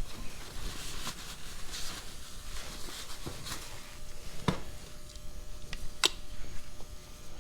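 Hand tools clicking and scraping on metal as a snap ring is worked off a tractor's PTO assembly: a few scattered sharp clicks, the sharpest about six seconds in, between light scraping.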